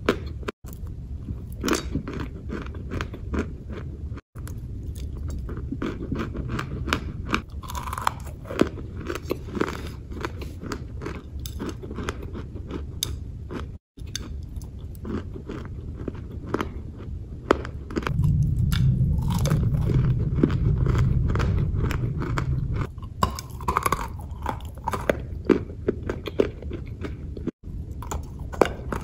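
Close-up biting and chewing of hard, crunchy chunks, with many sharp crunches one after another. For a few seconds past the middle a louder low rumble sits under the crunching.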